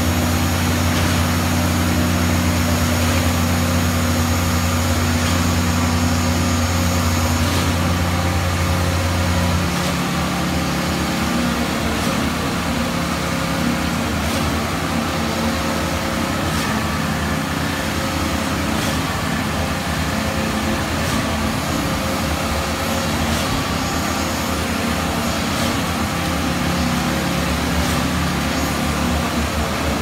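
Junjin JJRZ50-5.16HP truck-mounted concrete boom pump running steadily while pumping concrete, its strong low hum dropping away about ten seconds in.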